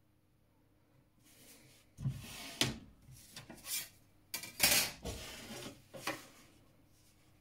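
Clear plastic set squares and a wooden ruler being slid across paper and set down on a drawing board: a run of scrapes and knocks, loudest about two and five seconds in, after a faint rustle.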